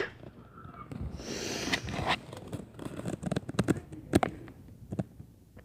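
Faint, irregular knocks and taps on a window pane from children banging on the glass, a handful of sharp hits with the loudest about four seconds in.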